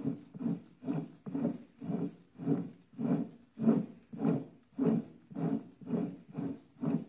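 Yamaha RD200 two-stroke twin turned over by hand with the cylinders on and the heads off: the pistons pump air in and out, a rhythmic breathy whoosh about twice a second.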